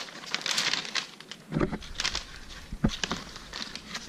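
Newspaper pages rustling and crinkling as they are handled and turned, with two dull low thumps, about a second and a half and about three seconds in.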